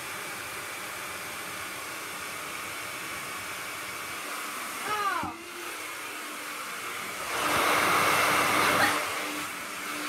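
Hair dryer running with a steady airy whir. It grows louder for about a second and a half from about seven and a half seconds in.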